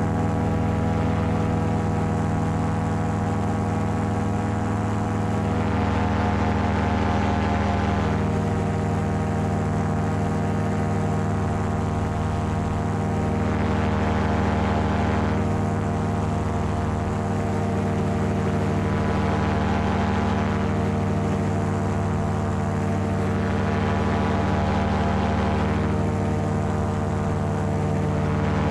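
Paramotor engine and propeller running steadily in flight, a constant drone with a higher hiss that swells and fades several times.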